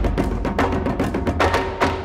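Background music with a quick, steady percussive beat of wood-block-like hits.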